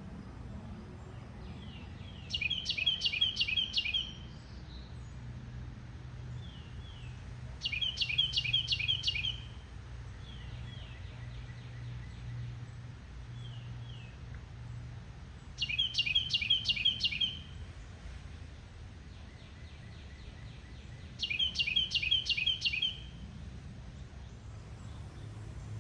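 A songbird singing four short phrases, each a quick run of repeated chirping notes lasting about a second and a half, with pauses of several seconds between them. A faint low hum runs underneath.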